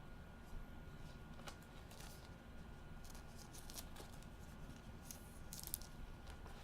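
Faint rustling and crinkling with scattered light clicks: trading cards and their plastic packaging being handled.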